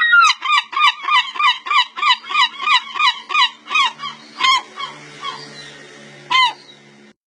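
Gull calling: a fast series of about a dozen harsh, falling calls, about three a second, then a few single calls spaced further apart, the last one near the end.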